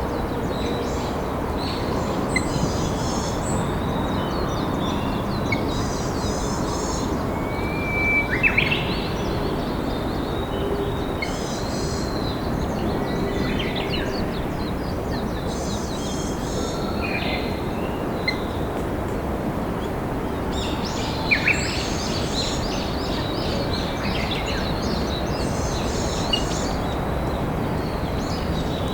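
A river flowing as a steady rush, with several wild birds singing over it: high chirping phrases repeating every few seconds, and a few louder, lower calls with quick falling notes about a third of the way in and again about three-quarters through.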